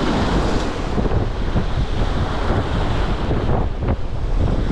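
Strong wind blowing hard across the microphone, over the wash of heavy lake waves: a steady, rumbling rush of noise.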